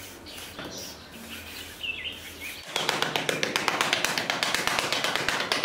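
Birds chirping faintly, then from about three seconds in a small hand trowel scrapes and taps rapidly in sand.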